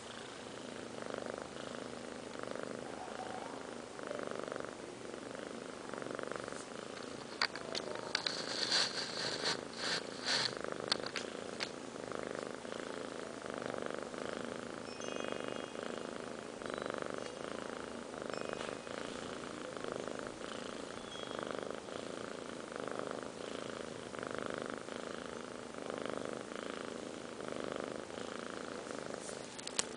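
Sleeping kittens snoring softly in an even rhythm, about one breath a second. A few sharp clicks and rustles come in the middle.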